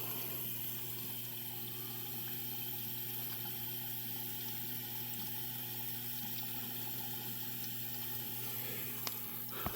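Frigidaire dishwasher filling with water through its open inlet valve: a steady flow of water with a low hum, ahead of the wash cycle.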